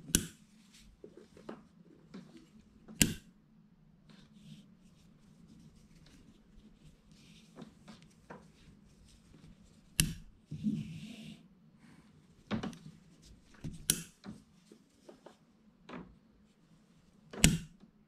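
Handling sounds of a cord being tied into a clove hitch on a carabiner: about six sharp clicks and knocks a few seconds apart as the carabiner is moved and clipped, with soft rustling of the rope between them.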